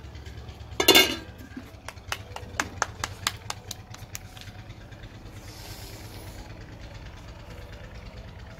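A steady low engine-like hum, with a short loud sound about a second in and a quick run of sharp clicks and taps over the next few seconds.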